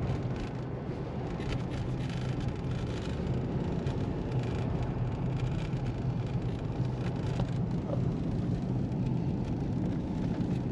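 Steady drone of a car driving, heard from inside the cabin: a low engine hum over road and tyre noise.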